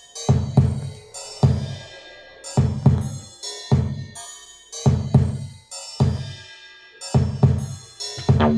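Electronic drum beat programmed on a Maschine Mikro groovebox: kick drum with snare and hi-hat hits, with no bassline yet.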